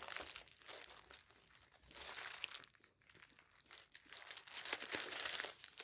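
Takeaway food wrapping crinkling and tearing in spells as it is handled and opened, most of it in the second half.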